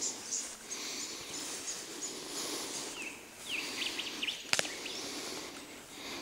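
Footsteps and rustling as someone pushes through long grass and scrub, with a few short bird chirps about three to four seconds in and a single sharp click a little later.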